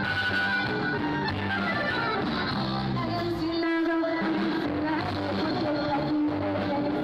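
Live band music: bass, electric guitar, keyboard and drums playing a steady, pulsing groove, with a woman singing over it. The bass drops out briefly near the middle under a held note.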